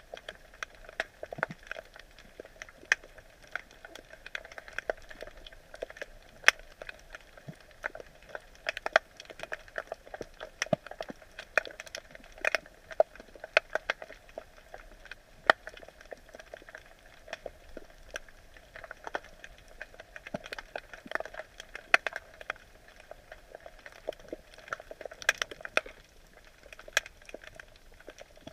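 Underwater sound picked up by a camera submerged in a crab net: a steady, dense crackle of sharp irregular clicks, some much louder than others, over a faint hiss.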